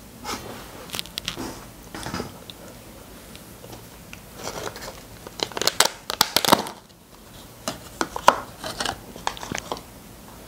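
Crinkling and crushing of packaging as a choux cream puff is unwrapped by hand, in three bursts of short crackles with pauses between, the loudest in the middle.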